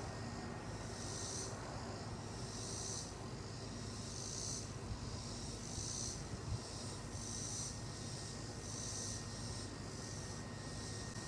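Cicadas calling in the trees: a high, rasping buzz that swells and fades in repeated pulses, about one a second.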